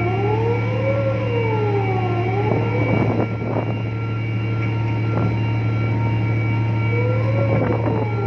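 Steady low drone of a ship's engine, with a few steady high whine tones over it. A siren-like tone sweeps slowly up and down in pitch during the first two seconds or so and comes back near the end, and a few sharp clicks sound about three seconds in.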